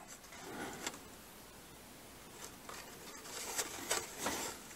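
Faint handling noise of a plastic blister-pack toy car card being turned over in the hands: light plastic-and-cardboard scrapes and a few soft clicks, more of them in the second half.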